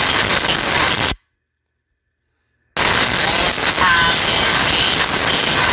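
Loud, steady hiss of audio static. About a second in it cuts out to dead silence for about a second and a half, then comes straight back.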